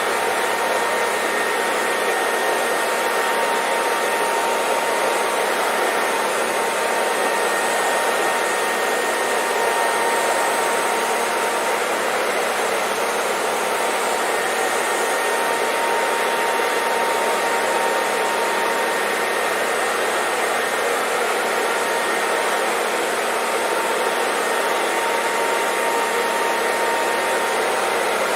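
Hair dryer blowing steadily, an even rushing noise with a faint constant whine from its motor, played continuously as white noise to help a baby sleep.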